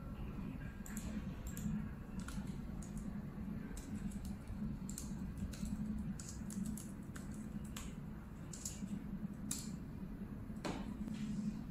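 Typing on a laptop keyboard: irregular key clicks, with one sharper click near the end, over a steady low hum.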